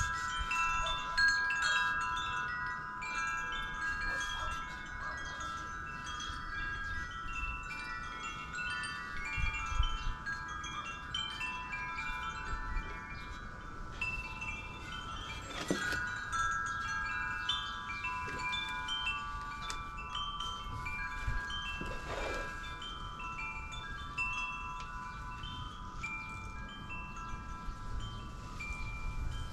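Wind chimes ringing: long sustained tones with many short, overlapping higher notes struck at random. Two sharp clicks stand out, about halfway through and again some six seconds later.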